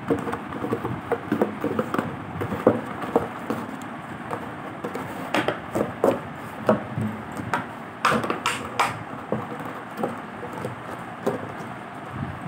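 A dog chewing and pawing an empty plastic bottle: irregular crinkling crackles and clicks of the plastic, with a louder cluster of cracks about eight seconds in.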